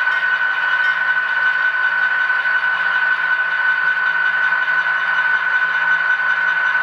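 HO scale model diesel locomotive's LokSound sound decoder playing a diesel engine running at low throttle as the locomotive creeps forward, with a steady high-pitched whine over a low hum.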